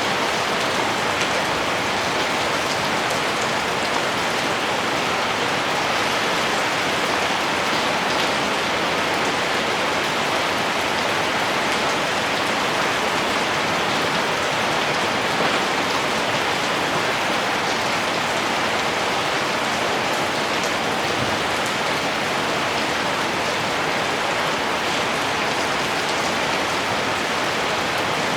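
Steady rainfall: an even, unbroken hiss of rain with no thunder.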